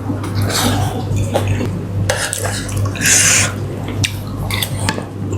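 Eating sounds: a spoon clicking and scraping against a plate or bowl, with a few short noisy scrapes or slurps, over a steady low hum.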